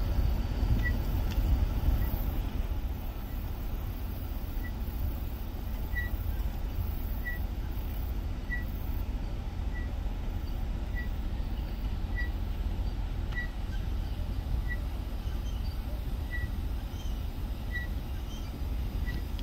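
Car engine idling with a steady low rumble. A faint, short, high peep repeats about once a second over it.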